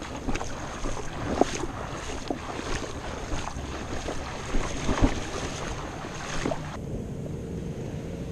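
Wind buffeting the microphone over small waves lapping and splashing in shallow water at the shoreline, with scattered short splashes and ticks. After about seven seconds the wind drops away and a faint steady hum comes in.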